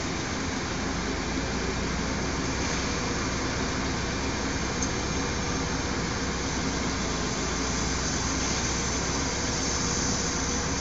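Toyota forklift's engine running steadily at idle.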